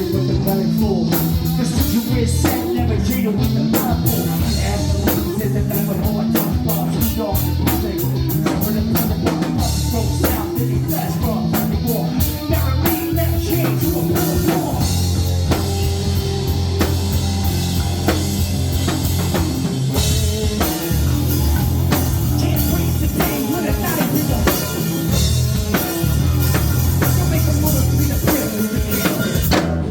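A live band plays an upbeat shag-dance number, with a drum kit keeping a steady beat under guitar and singing.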